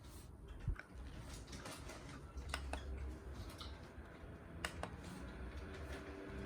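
Scattered light clicks and taps over a faint low rumble.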